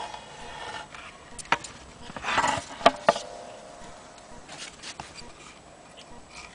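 Handling noise from an old wooden chord zither being turned over and moved: rubbing and a few sharp knocks, loudest between two and three seconds in, one knock followed by a short ringing tone.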